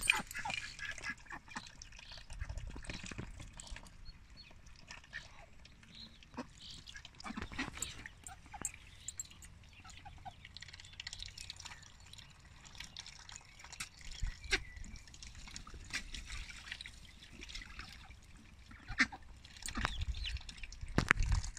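Runner ducks dabbling in a tub of water: soft splashing and dripping with quiet quacks and many short, scattered light clicks.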